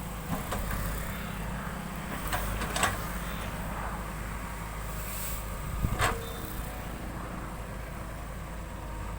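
JCB 3DX backhoe loader's diesel engine running steadily at work, with a few sharp metallic knocks, the loudest a double knock about six seconds in.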